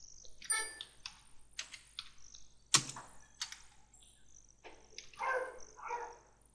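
Computer keyboard being typed on: a few short, irregular key clicks.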